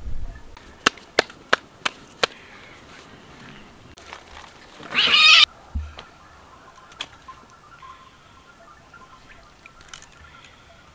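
A loud, short animal cry about five seconds in, after five sharp knocks spaced about a third of a second apart, and followed by a dull thump.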